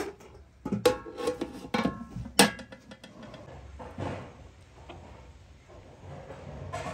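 Kitchenware being handled: a sharp knock at the start, then a run of clinks and knocks with a short ring, the loudest about two and a half seconds in, followed by quieter scattered handling.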